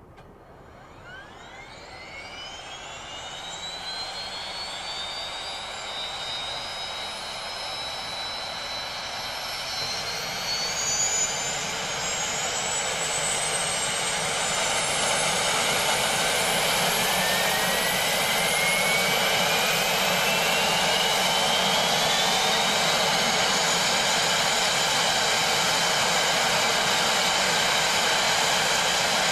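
Pratt & Whitney PT6A-65R turboprop engine of a Shorts 360 starting from rest. A whine begins about a second in and climbs in pitch over the first fifteen to twenty seconds, growing louder as the gas generator spools up, lights and the propeller spins up. It then settles into a steady loud idle whine and rush for the last ten seconds or so.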